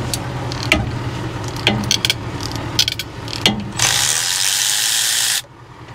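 Cordless ratchet backing out a turbocharger-to-exhaust-manifold bolt: a few separate clicks and knocks of the tool on metal, then the ratchet runs steadily for about a second and a half and stops suddenly.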